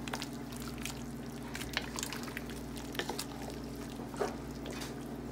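A pan of steaming vegetable soup being stirred with a utensil: liquid sloshing and dripping, with scattered light clicks of the utensil against the pan, over a steady low hum.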